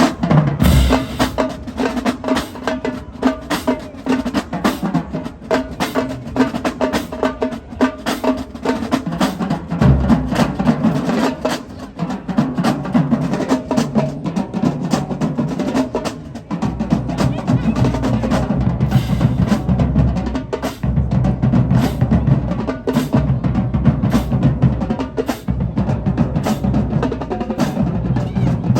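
Marching drumline playing a funk groove: rapid snare strokes and rolls over drums. The low bass drums come in heavier about a third of the way in and fill out more fully a little past halfway.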